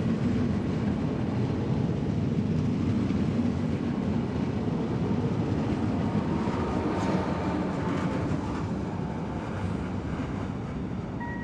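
A double-deck electric passenger train departing along the platform: a steady low rumble of wheels on rails. A faint thin whine comes in about six seconds in as the electric locomotive at the rear goes by, and the sound eases a little near the end.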